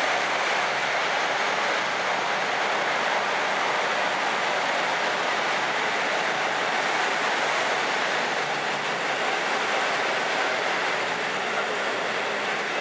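KiHa 85 series diesel railcars moving slowly past along the platform: their diesel engines and running gear make a steady, loud, even noise.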